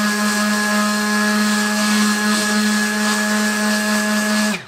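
Milwaukee M12 Fuel orbital detail sander running steadily with its pad pressed on painted plywood, a loud even motor hum. It is switched off near the end and winds down with a falling pitch.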